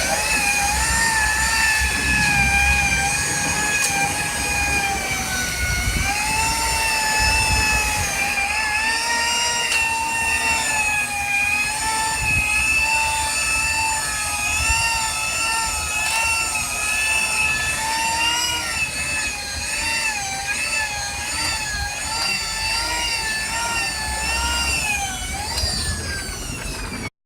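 Electric orbital polisher running with a steady high whine whose pitch dips and rises repeatedly as the pad is worked against the paint. It cuts off suddenly near the end.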